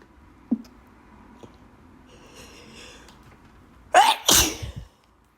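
A person sneezes once, loudly, about four seconds in: a sharp "ah" straight into a long noisy blast. It is an allergy sneeze. Before it come a short catch of breath and a drawn-in breath.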